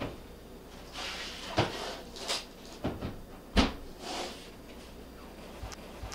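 Electric range oven door being opened and a metal baking sheet of hardtack pulled out from the rack: a short series of clunks and clatters, the loudest about three and a half seconds in.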